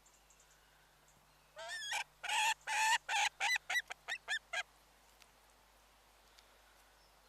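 A bird giving a loud series of harsh, pitched calls: a few longer notes that quicken into about eight short ones over some three seconds, then stop.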